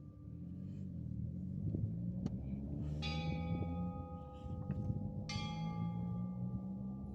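San Xavier Mission's church bell tolling: it is struck twice, about three seconds in and again a couple of seconds later. Each stroke rings on with long, slowly fading overtones, over the fading ring of the stroke before.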